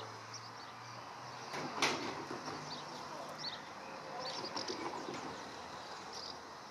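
Open-air ambience with small birds chirping on and off, and one sharp click about two seconds in.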